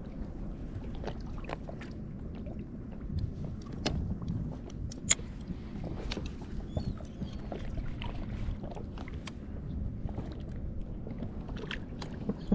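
Deck ambience on a small fishing boat: a steady low rumble with scattered light clicks and knocks, one sharper knock about five seconds in.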